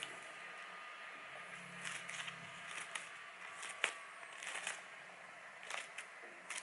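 Freshly sharpened scissors snipping through a sheet of paper, a string of short crisp cuts at about one or two a second, as a test of the edge.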